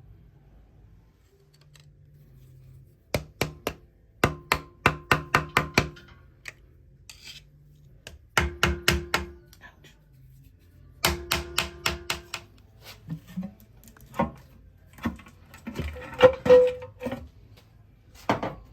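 Hammer blows on metal engine parts, coming in quick runs of several strikes that each leave a short metallic ring, then scattered knocks and clanks near the end: a part being hammered loose during the engine teardown.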